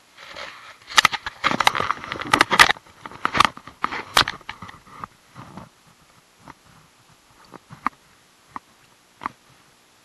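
Close-up crunching, scraping and rustling of clothing and gravel against a body-worn camera as the angler shifts down a gravel bank, dense for the first few seconds, then only a few single sharp clicks.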